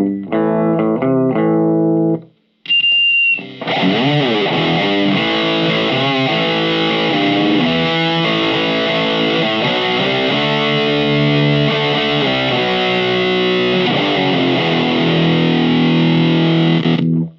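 Distorted electric guitar played through a Marshall MG15MS2 micro stack loaded with a new Celestion speaker. A few chords sound for about two seconds, then a short break with a brief high tone. A long riff with string bends follows and cuts off just before the end.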